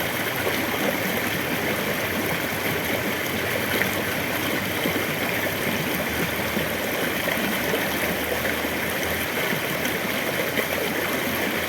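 Forest stream running over boulders, a steady, even rush of water. The flow is light, since little rain has fallen.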